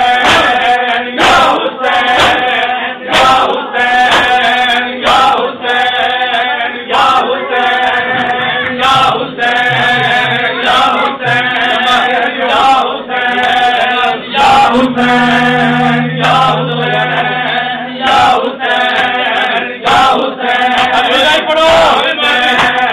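A group of men chanting a Shia noha (mourning elegy) together, with hand-on-chest slaps of matam landing in time about once a second.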